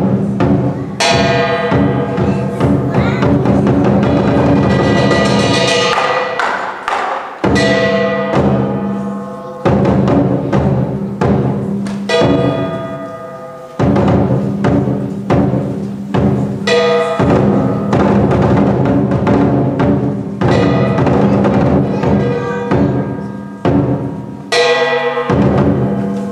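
Chinese lion dance percussion: a large lion drum beating continuously, with loud clashing cymbal and gong accents every three to five seconds that ring on and die away.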